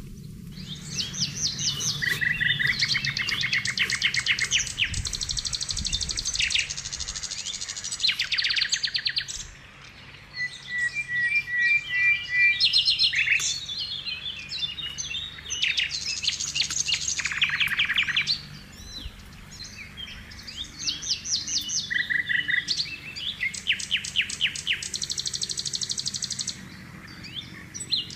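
Songbirds singing and chirping in rapid high trills, several phrases overlapping in bursts, with short lulls about ten seconds in and again around twenty seconds.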